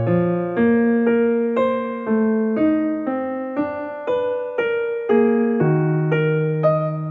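Background piano music: a slow melody with a note struck about every half second, each fading away before the next.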